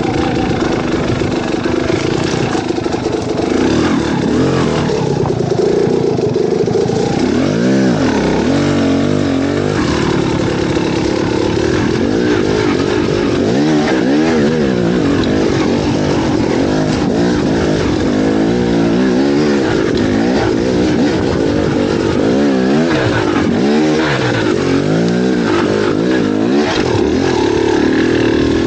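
Motorcycle engine running under way, its revs rising and falling again and again.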